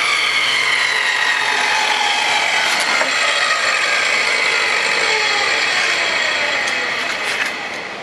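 10-inch portable table saw's motor and blade winding down after being switched off: a whine with several tones that fall slowly in pitch, fading near the end.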